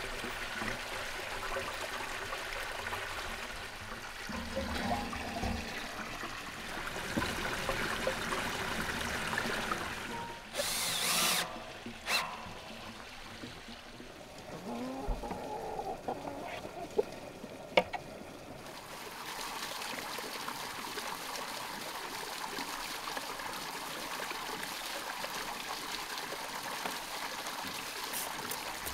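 Water running steadily from a spout into a stone basin. Earlier there are scattered knocks and clicks of handwork and one short loud noise about a third of the way in.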